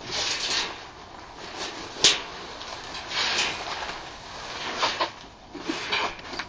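Unpacking noises: bubble wrap and cardboard rustling and a padded bag scraping as it is handled on a table, in several short bursts, with a sharp knock about two seconds in.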